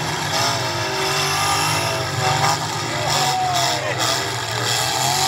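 Demolition derby cars' engines running and revving, several at once, their pitch rising and falling over a steady low drone.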